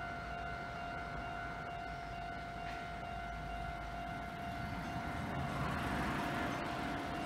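Japanese level-crossing warning alarm sounding its continuous high tone as a Kintetsu train approaches. The train's rushing rumble builds from about five seconds in.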